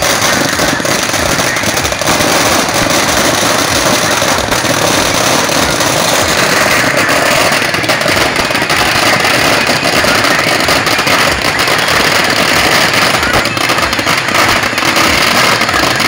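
A long string of firecrackers going off in rapid, continuous crackling.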